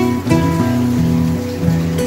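Background music: held notes that move to new pitches about every half second.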